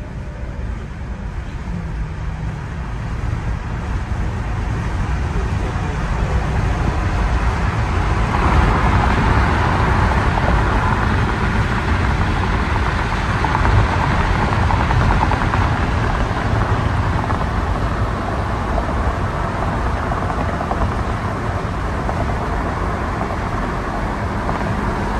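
Road and wind noise of a car moving at freeway speed, a steady rushing that grows louder over the first eight seconds or so and then holds.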